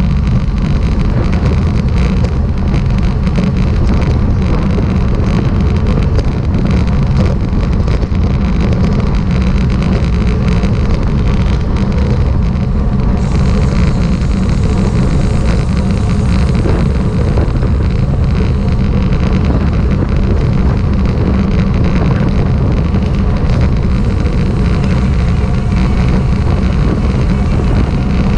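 Loud, steady wind rush buffeting the microphone of a camera moving at road speed, a dense low rumble without a clear engine note. The hiss above it turns a little brighter about halfway through.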